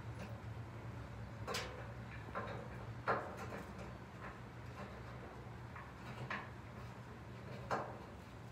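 A few separate light metallic clicks and taps from a bolt being fitted by hand under a car's front fender, the loudest about three seconds in, over a steady low hum.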